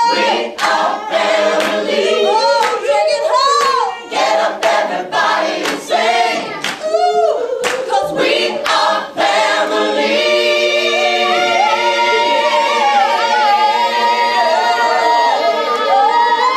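A group of adult voices singing together unaccompanied, with sharp hand claps on the beat, about two a second, through the first half. About ten seconds in the clapping stops and the group holds a long sustained chord.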